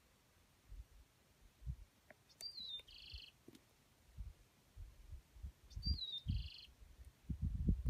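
A bird calling twice, about three seconds apart; each call is a short high whistle sliding downward, followed at once by a brief buzzy note. Low thumps and rumbles on the microphone grow louder near the end.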